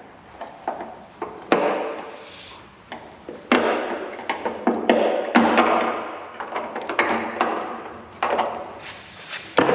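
A run of knocks and clunks from handling the empty steel fuel tank, each with a short hollow ring. The strikes come irregularly, the loudest at about a second and a half, three and a half, five, and near the end.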